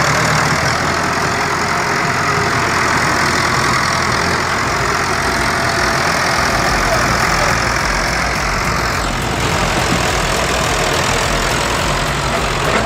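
An old heavy vehicle's engine running steadily, with a dense mechanical din over its low engine note; the higher part of the noise eases off about nine seconds in.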